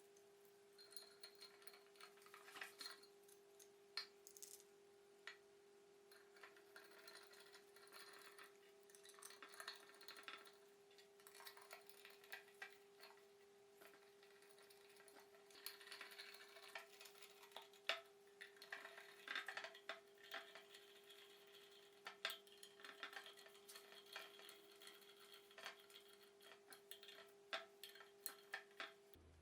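Faint scattered clicks and clinks of small metal parts being handled, over a steady faint hum.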